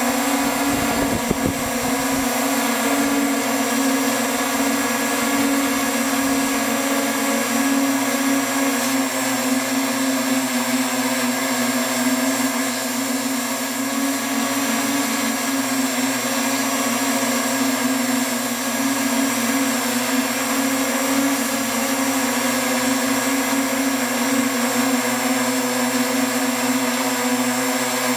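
Octocopter's eight electric motors and propellers running steadily in flight, recorded on board: a loud, even whine at a nearly constant pitch. A brief low rumble comes in the first two seconds.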